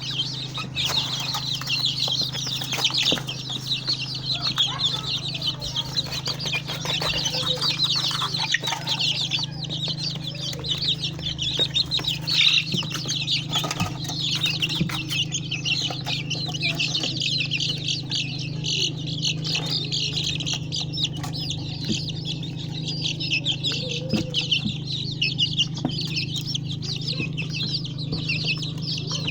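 A flock of four-week-old native Nigerian chicks peeping continuously, many high cheeps overlapping, with a steady low hum underneath.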